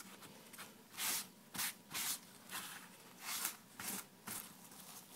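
Paper towel wiping across a carved leather phone cover, about eight short swishes at uneven spacing, as excess antique paste is wiped off the raised surface.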